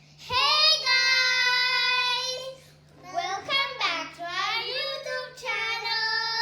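A child singing without accompaniment: a long held high note, then a stretch of notes sliding up and down, then another held note.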